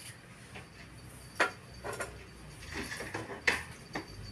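A phone speaker playing video clips: a few scattered knocks and clatters, two sharper ones about a second and a half in and again near three and a half seconds, over a low steady background.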